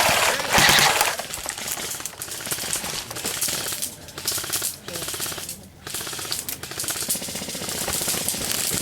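Airsoft guns firing on full auto: a fast, continuous rattle of shots in long bursts, loudest in the first second, with short breaks about four seconds in and just before six seconds.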